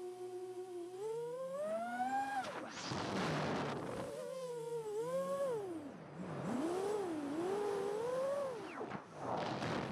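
The motors of a 7-inch FPV quadcopter whining, holding a steady pitch at first and then sweeping up and down in pitch over and over as the throttle is worked. Two loud rushes of wind noise come in the middle and again near the end.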